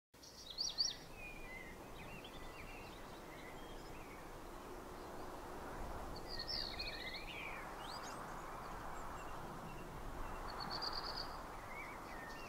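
Outdoor ambience: a faint, steady hush with birds chirping and trilling now and then, in short clusters of high calls.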